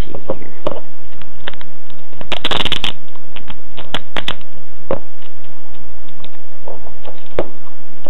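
Clear protective plastic film being handled and peeled off the back of an iPod Touch: scattered small clicks and crinkles, with a louder rustling tear about two and a half seconds in.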